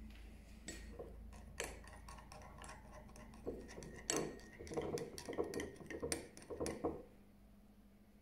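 Metal spoon clinking and scraping against a small glass bowl while stirring oil and vinegar. A few scattered ticks give way to a quick, dense run of clinks about four seconds in, which stops about seven seconds in.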